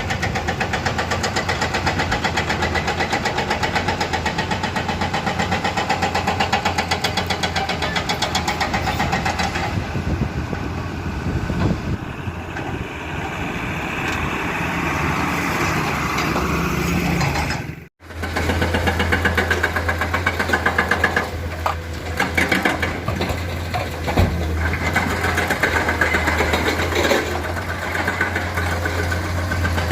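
Diesel engine of a Komatsu hydraulic excavator running steadily under working load as it digs and loads rock, with a fast, even firing rhythm. The sound cuts out for an instant about two-thirds of the way through, then returns with a stronger low hum.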